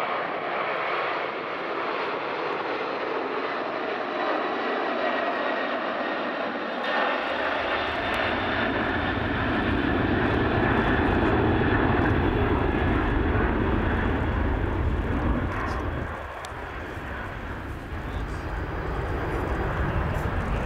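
A McDonnell Douglas MD-11's three GE CF6-80C2 turbofan engines at climb power as the airliner climbs away. A jet noise with a faint high whine at first, then a deep low rumble builds in about a third of the way through, dipping briefly near the end.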